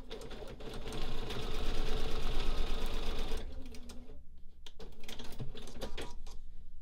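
Bernina sewing machine stitching a short seam through fabric and its paper foundation, running fast for about three seconds and stopping about halfway through, followed by a few light clicks.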